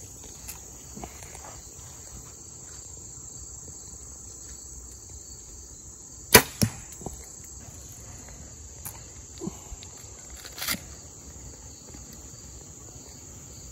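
Compound bow shot: a sharp crack as the string is released about six seconds in, followed a moment later by the arrow hitting a foam block target, and another sharp crack near the end. Crickets chirp steadily throughout.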